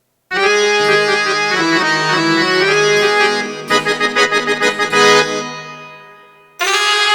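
Casio CTX-8000IN electronic keyboard playing one of its Indian tone presets: a short melody over a held low note, with a quick run of repeated notes about halfway through, then fading away. A different tone comes in sharply near the end.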